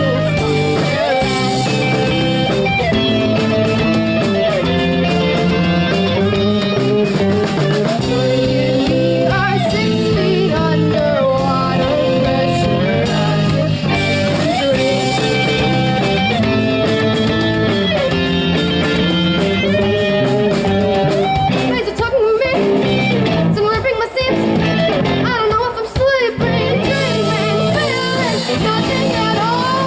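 Live rock band playing: electric guitars and drum kit with a lead singer. The band drops out briefly a few times near the end before coming back in.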